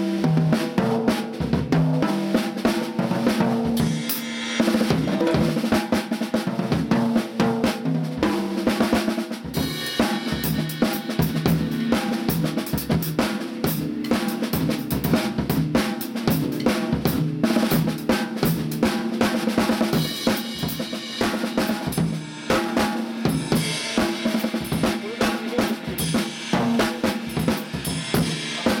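Drum kit played in a continuous groove, showcasing the Mapex BRBR465HZN 'Sledge Hammer' snare drum, with bass drum, hi-hat and cymbals. The strikes come thick and fast, with no pause.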